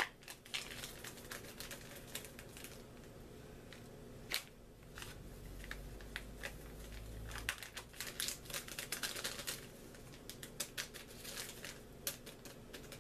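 Paper packet of gelatin powder crinkling as it is shaken out into a glass measuring cup, with quick light clicks and taps of a metal spoon against the glass. There is one sharper tap about four seconds in and a busy run of clicks a little past the middle.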